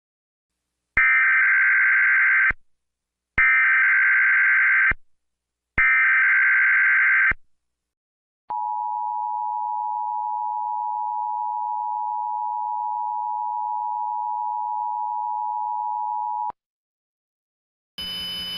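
Emergency Alert System test tones: three bursts of SAME header data tones, each about a second and a half, followed by the EAS two-tone attention signal (853 and 960 Hz together) held steady for about eight seconds. A different steady sound starts just before the end.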